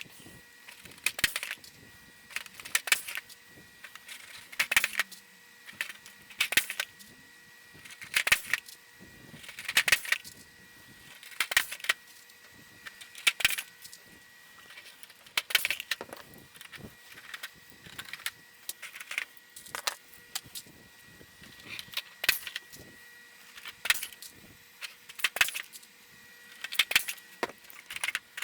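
Blind rivets being pulled one after another with a rivet gun into an aluminium flaperon rod cover: a sharp metallic snap about every one and a half to two seconds, sometimes two close together, as each mandrel breaks.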